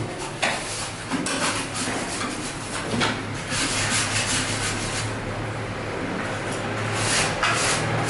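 Irregular rasping, rubbing strokes, like scraping or sanding, over a low steady hum.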